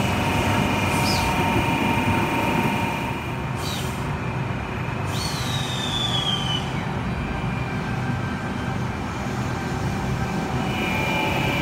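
Sydney Trains Waratah B-set double-deck electric train running, a steady rumble and electric hum. Brief high squeals, the longest falling in pitch about five seconds in.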